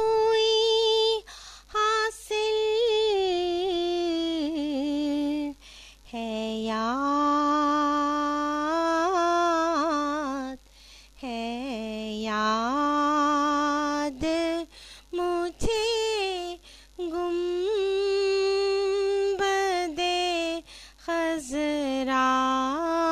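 A woman singing an Urdu naat unaccompanied, drawing out long held notes with wavering, gliding ornaments, broken by several short pauses between phrases.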